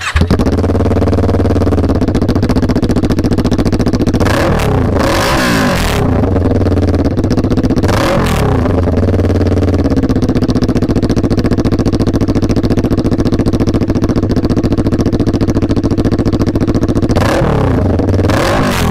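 Inline-four 400 cc sportbike with an SC Project aftermarket exhaust running at a steady, fast idle, blipped up and down in revs about four seconds in, again around eight seconds, and once more near the end.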